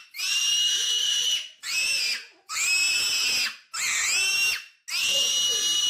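A farm animal squealing: five high-pitched squeals in a row, most of them long, with short breaks between.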